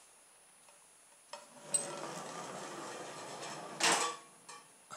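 Rubber-band-powered toy car running across a wooden floor for about two and a half seconds. A sharp relay click about a second and a half in marks the laser beam being broken and the stopwatch starting. Near the end comes a loud clattering crash as the car hits the far timer gate.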